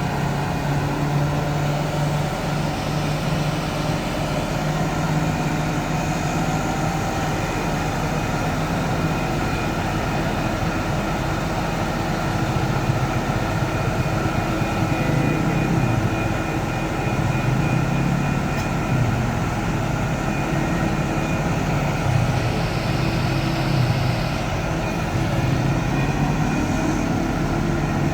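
Heavy diesel machinery engine running under load during the lifting of a Bailey bridge section, with a steady hum that wavers slightly in pitch.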